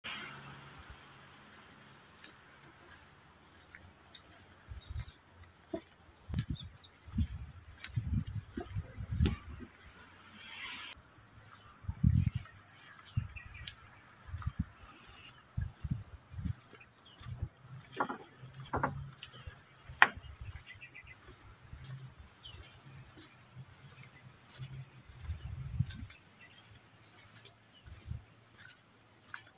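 A steady, high-pitched chorus of insects chirring in coastal mangrove scrub. Irregular low thuds run beneath it, from footsteps on a wooden boardwalk, and there is a single sharp click about twenty seconds in.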